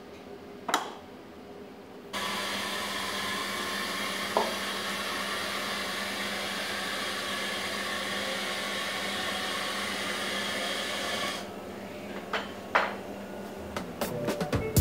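A workshop machine's steady motor drone, with a fan-like rush and a low hum, starts abruptly about two seconds in and stops after about eleven seconds. A few light knocks of wooden cup blanks being handled come before and after it.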